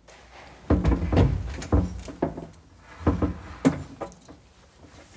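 Carousel storage unit being set into a kitchen corner base cabinet, giving a series of irregular knocks and bumps against the cabinet, about half a dozen in the first few seconds.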